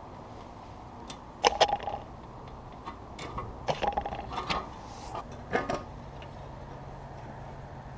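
Sharp clicks and light metallic clinks of hand work on a lawnmower's recoil starter, as parts and tools knock together. There are a few scattered clusters with a brief ring.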